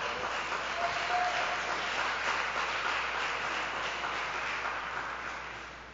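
Congregation applauding, a steady patter of many hands that fades away near the end.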